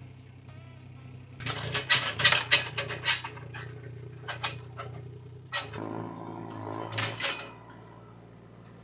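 Small excavator's engine running steadily, with a run of sharp metal clanks and knocks as a bucket is being fitted to the arm. The engine note shifts a little about six seconds in.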